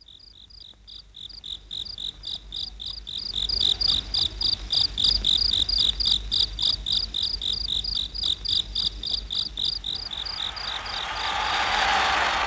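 Cricket-like chirping that fades in and pulses evenly about four times a second, with a hiss swelling up over the last couple of seconds, as the intro of an electronic dance track.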